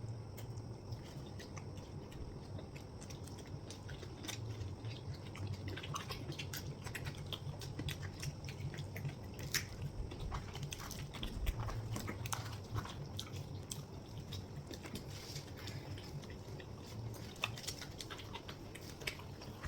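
Close-up eating sounds of chhole bhature being chewed and bitten: irregular small wet clicks and smacks over a low steady hum.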